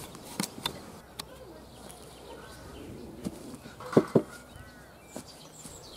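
Scattered short knocks, with two louder thumps close together about four seconds in, and a few short bird chirps.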